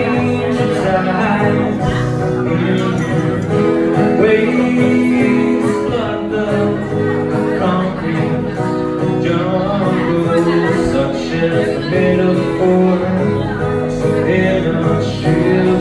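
Acoustic guitar playing a continuous strummed and picked tune.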